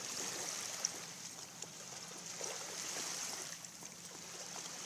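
Shallow water trickling at the shoreline, a steady hiss with a few faint ticks and splashes.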